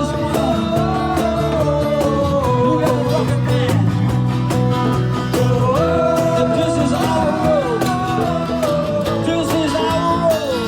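Live acoustic band playing: steadily strummed acoustic guitar with a long, sliding melody line held over the chords.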